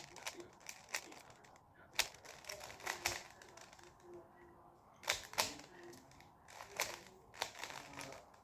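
Plastic Rubik's cube being turned, with irregular clicks and clacks of the layers snapping round, some in quick runs and a few louder ones.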